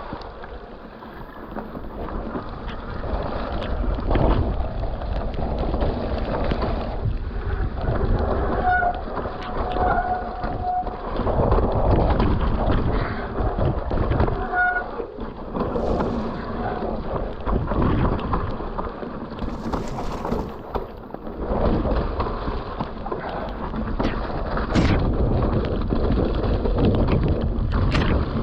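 Mountain bike riding down a wet trail: wind rushing over the microphone and tyres rolling over rock and dirt, with frequent knocks and rattles from bumps, muffled by the rain. A few short squeaks sound around the middle.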